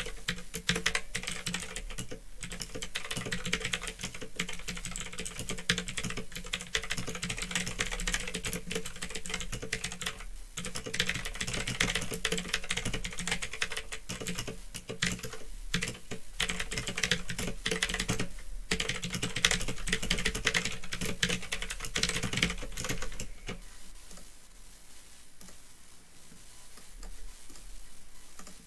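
Fast typing on a Phantom Tecware 87 mechanical keyboard with clicky Otemu Blue switches: a dense stream of key clicks with a few brief pauses, softer and sparser over the last few seconds. A steady low hum runs underneath.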